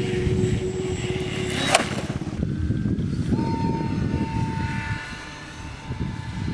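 Small electric motor and propeller of a homemade model plane whining steadily over wind rumble on the microphone; the whine cuts off after a sharp click a little under two seconds in, and a higher-pitched whine starts about three seconds in.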